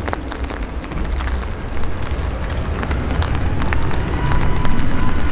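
Boeing C-17A Globemaster III's four turbofan jet engines running at taxi power: a steady low rumble with scattered crackles, and a faint whine that comes in about halfway through and rises slightly near the end.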